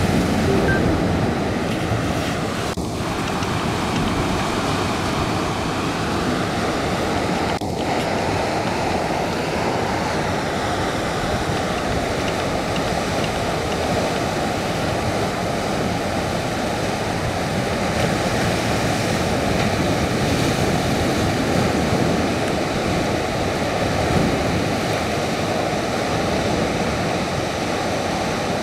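Ocean surf: waves breaking on the reef and washing in over the shore rocks as a steady, unbroken rush.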